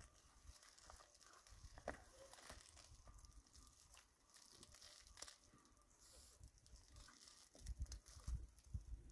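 Near silence: a few faint scattered clicks and light rustling, with a low rumble starting about a second and a half before the end.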